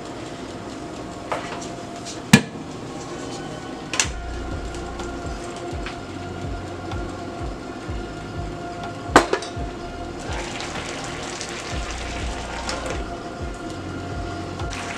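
Metal cookware being handled on a stovetop: a few sharp clinks and knocks of a steel bowl and pan lid, the loudest clank about two seconds in and another about nine seconds in, over a steady background hum.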